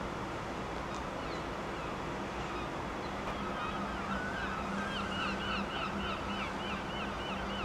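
A bird calling in a quick series of short, repeated notes, about four a second, starting about four seconds in, over a steady outdoor rushing background and a low steady hum.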